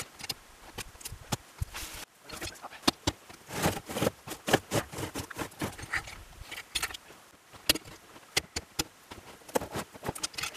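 Irregular crunches, knocks and scrapes from a large log being worked by hand in snow with a cant hook: boots crunching in packed snow and the hook biting and scraping on the bark.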